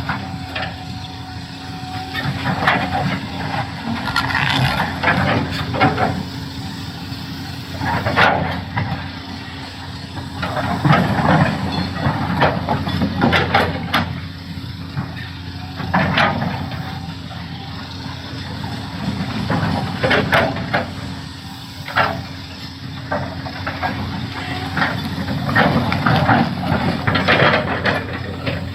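Doosan DX390 excavator's diesel engine running steadily under load, with irregular knocks and scrapes as rock grinds and strikes against the bucket, and hydraulic hissing.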